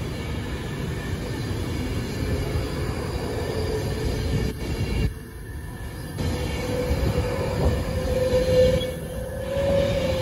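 Avanti West Coast Class 390 Pendolino electric train running past along the platform: a steady rumble of wheels on rail with a whine that rises slightly in pitch near the end. The sound briefly dips in loudness about five seconds in.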